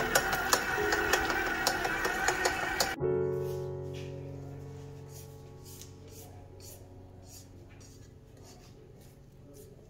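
Background music: a busy passage with sharp clicks breaks off suddenly about three seconds in. It leaves a held chord that slowly fades away, with faint regular ticks under it.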